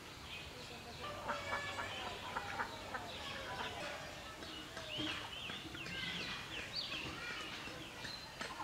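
Farmyard fowl calling in a scatter of short calls, with a quick run of rise-and-fall chirps about five seconds in.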